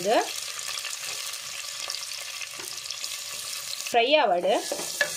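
Sliced onions sizzling in hot coconut oil as they are added to the pot: a steady frying hiss.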